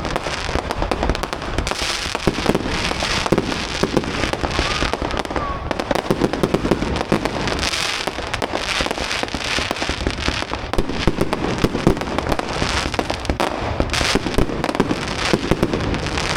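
Fireworks display: a continuous barrage of rapid bangs and crackling.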